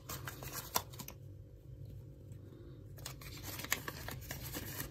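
Soft rustling and crinkling of paper rupiah banknotes being handled, with scattered light clicks and taps and a quieter lull in the middle.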